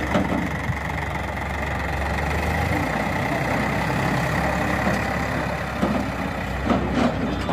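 Sonalika DI-750 III tractor's diesel engine running steadily while its hydraulic tipping trolley is raised to dump sand. A few knocks are heard near the end.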